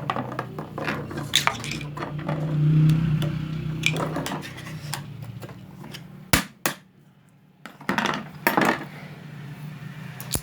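Metal clicks and clinks from work on a Juki industrial sewing machine just after its hook timing was set, over a steady low hum that swells about two to four seconds in. Two sharp clicks come about six seconds in, then a brief quiet and a few more clicks.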